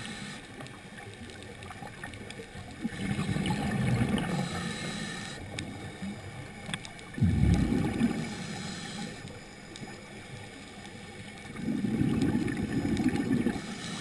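Scuba diver's exhaled bubbles rumbling out of the regulator in bursts about every four seconds, three times, with a quieter hiss and faint scattered clicks in between.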